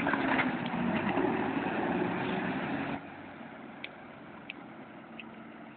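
Off-road vehicle's engine running as it drives through a river, louder for about the first three seconds and then dropping off, with a few faint clicks later on.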